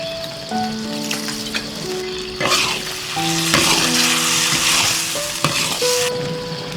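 Food sizzling as it fries in a hot pan, with a few sharp knocks as it is stirred, over background music with held notes.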